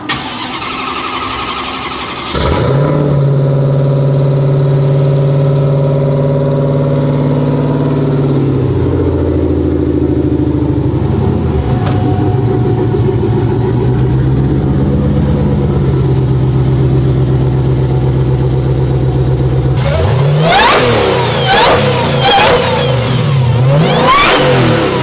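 Hellcat Redeye supercharged 6.2-litre Hemi V8, swapped into a Dodge Ram pickup, fires up about two seconds in at a high idle. It settles to a lower idle about six seconds later, then is revved in several quick blips near the end.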